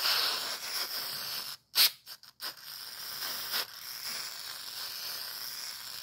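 Aerosol can of white lithium grease spraying onto a hub motor's bearing seat: a steady hiss that breaks off briefly near two seconds in, with a sharp click, then hisses on.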